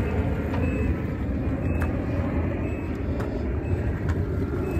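Steady low rumble of a motor vehicle, with a few faint short high beeps now and then.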